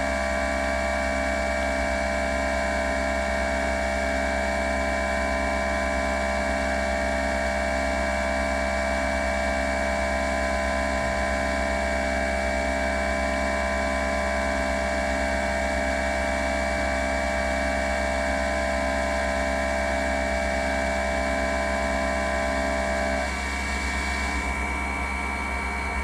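Large face mill on a horizontal machining center cutting an aluminum forging under flood coolant: a steady whine of several tones from the cut over the hiss of coolant spray. About 23 seconds in some of the tones drop out and the sound eases slightly.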